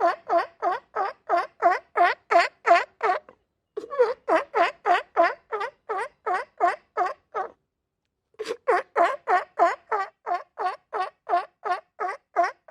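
Sea lion barking in rapid strings of about three to four barks a second, in three long bouts broken by short pauses.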